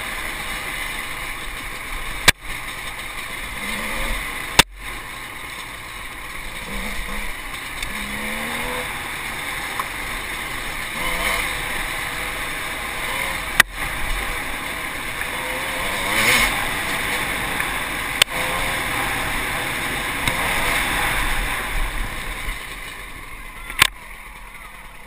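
Enduro dirt bike engine heard through a GoPro housing, revving up and down as it rides a rough trail, with a few sharp knocks from the bike jolting over bumps. The engine eases off near the end.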